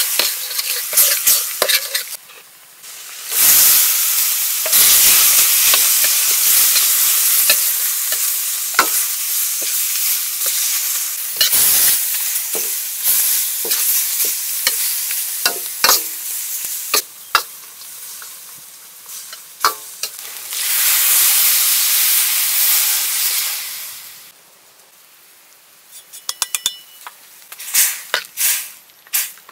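Masala curry paste sizzling and frying in a stainless steel wok while a steel ladle stirs and scrapes against the pan. The sizzle comes up loud a few seconds in and again around twenty seconds, then dies down near the end, leaving mostly the ladle's scrapes and clicks.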